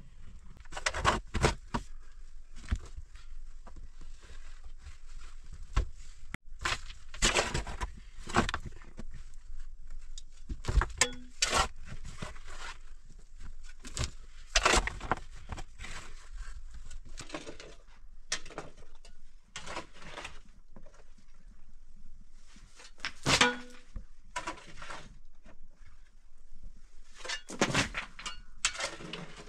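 Footsteps, scuffs and crunching of a person moving over a gravelly rock floor, with small stones knocking. The sounds come in uneven spurts, with a few sharper knocks scattered through.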